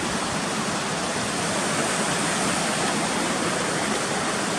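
Steady rush of falling water from a waterfall and its creek, even and unbroken.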